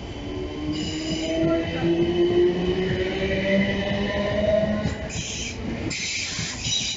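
South Western Railway electric multiple unit pulling out of the platform, its motors whining in tones that slowly rise in pitch as it gathers speed. High-pitched wheel squeal comes about a second in and again over the last two seconds.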